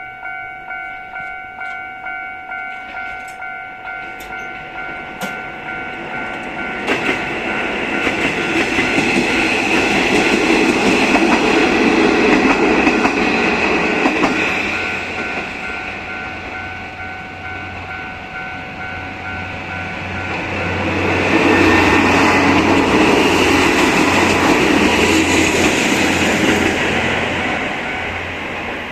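Japanese level-crossing bell ringing in quick steady strokes, about two a second, while Kanto Railway Joso Line diesel railcars pass with loud wheel and engine noise. The train noise swells about seven seconds in and again about twenty seconds in. The bell stops partway through.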